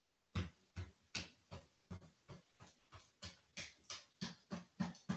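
Open hands patting the chest and belly in a brisk steady rhythm of slaps, about three a second, starting about half a second in: a self-patting (paida) routine worked down the front of the body.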